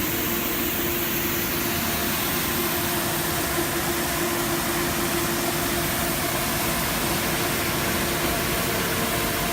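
A machine with an engine running steadily, an even hiss with a constant low hum under it.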